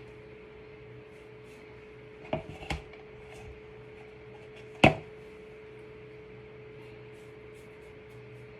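Small objects being handled: two or three light knocks about two and a half seconds in, then one sharp click near the middle, over a steady low hum.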